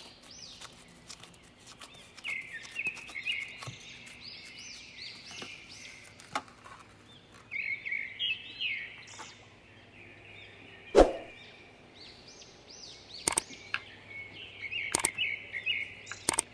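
A small bird chirps and sings throughout in quick runs of rising-and-falling notes. A single sharp knock about eleven seconds in is the loudest sound, with a few lighter clicks after it.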